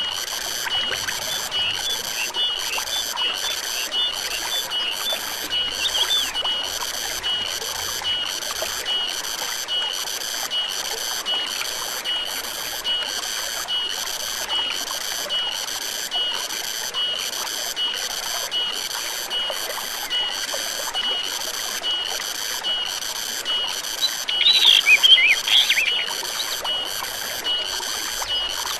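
Forest stream ambience: running water trickles steadily under a high, regular chirping call that pulses about one and a half times a second. Near the end comes a louder, brief warbling bird-like call.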